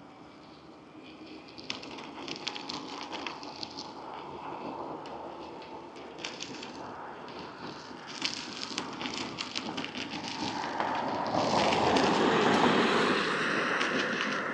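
Vanpowers Urban Glide Ultra e-bike rolling along the road: steady tyre noise with scattered crackles and ticks. A broad rushing noise builds over the last few seconds.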